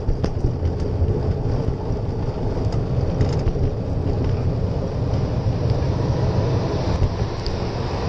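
Steady low rumble and wind buffeting on the microphone of a handlebar-mounted action camera during a bicycle ride, with a few faint ticks.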